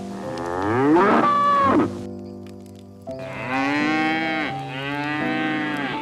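Calf mooing twice: a first call that rises in pitch and stops abruptly about two seconds in, then a second, longer call from about three and a half seconds. Soft background music with sustained notes plays underneath.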